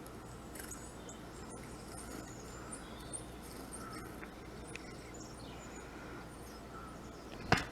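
Faint bird chirps and calls from a bird video playing through a computer's small speakers, with a single sharp knock near the end.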